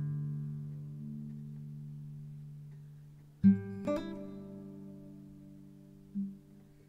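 Background music: slow acoustic guitar, chords plucked and left to ring out and fade, with a fresh chord struck about halfway through and a softer note near the end.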